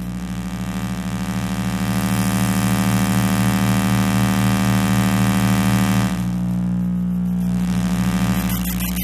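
Electrical interference from electronic devices picked up by an RFI probe: a loud buzzing hum with many evenly spaced overtones and a pulsing low throb. Over it, a hiss swells and cuts off about six seconds in, and fast crackling ticks come in near the end.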